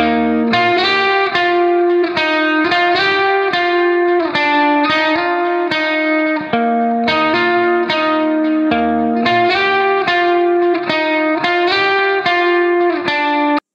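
Background music: a guitar picking a steady, even run of plucked notes, cutting off abruptly near the end.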